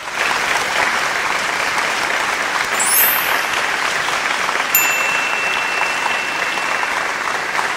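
Audience applauding steadily at the end of a live band's song.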